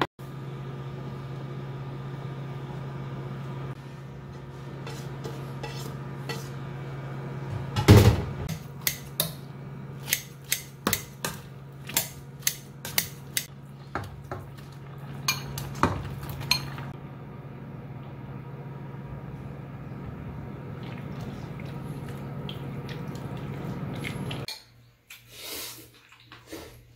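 Clinks and knocks of a utensil against a stainless steel pot while mushrooms and vegetables go in for doenjang soup, one loud knock about a third of the way in and a run of sharp clicks after it, over a steady low hum. Near the end the hum stops and there are lighter clinks of spoons and chopsticks against bowls.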